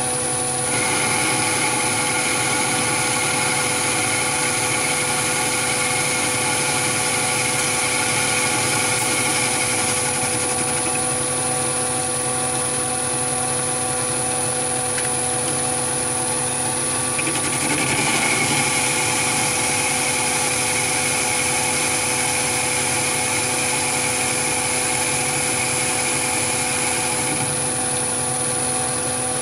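Chinese mini lathe running steadily at about 690 RPM with a constant motor and gear hum. Twice, for about ten seconds each, a higher whine with a hiss joins in as the compound slide's variable-speed motor drive feeds the tool along a long taper cut in mild steel.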